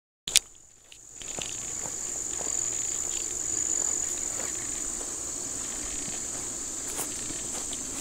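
Insects singing, a steady high-pitched trill, with soft footsteps on grass. It opens with a sharp click after a brief silence.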